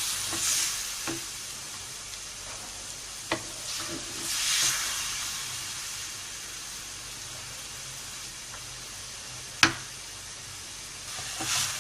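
Spice-marinated boneless chicken frying in hot oil in a pan: a steady sizzle that swells several times as the pieces are stirred, with two sharp knocks, a few seconds apart, against the pan.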